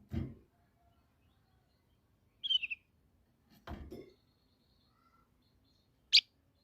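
Kutilang emas bulbul giving short, sharp chirping calls: a quick burst of notes about two and a half seconds in and a single loud chirp near the end. Two dull low thumps come at the start and about three and a half seconds in.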